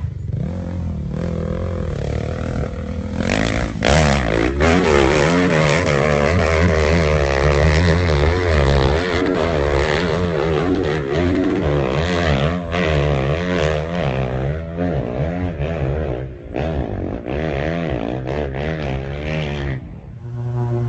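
Off-road vehicle engine revving hard, its pitch swinging up and down again and again, with a few loud knocks about four seconds in; the engine sound drops away near the end.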